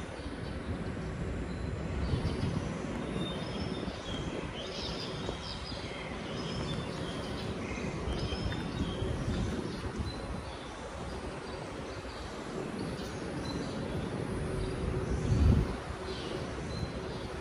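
Outdoor city ambience: a steady low rumble with scattered bird chirps, and a brief low bump about fifteen seconds in.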